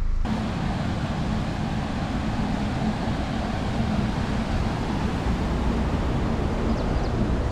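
Steady rush of river water spilling through a concrete weir, with a low rumble underneath.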